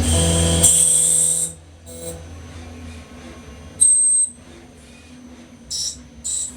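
CNC turning machine machining brass parts: a loud high-pitched whine over a low hum that stops about a second and a half in, then a short sharp whine about four seconds in and a run of brief high-pitched bursts near the end.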